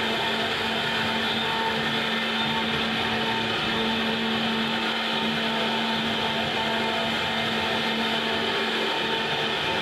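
CNC router running steadily, its spindle motor whining and the bit cutting with a constant hiss, over a steady low hum.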